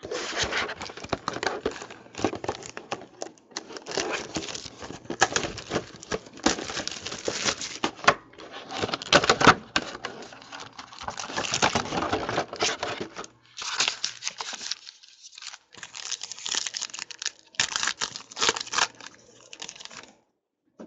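Packaging of a trading card box being torn open and crinkled by hand: dense, irregular crackling and rustling that comes in spells, with a few short pauses.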